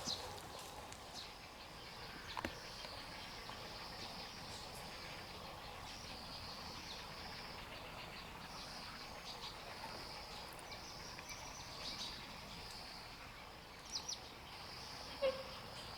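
Outdoor ambience with a steady, high-pitched insect trill that swells and fades in stretches, and a few brief sharp sounds near the end.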